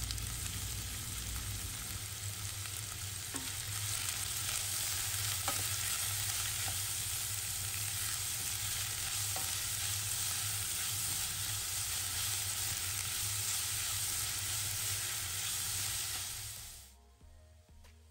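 Chopped onions, ginger and garlic sizzling in hot oil in a stainless steel pan, stirred with a wooden spoon, with a few faint knocks. The sizzle cuts off suddenly near the end.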